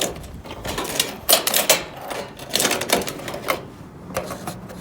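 Metal hinged gutter guard clattering and tapping as it is handled and set into the gutter: an irregular run of clicks and light knocks.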